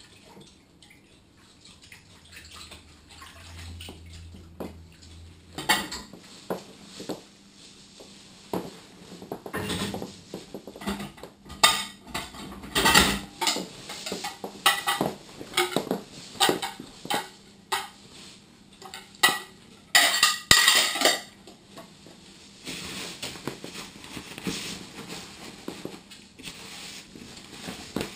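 Dishes and cutlery clinking and knocking against each other in a kitchen sink during hand washing-up, with water splashing. A quick run of clatters starts about six seconds in and gives way to a softer, steadier wash of sound near the end.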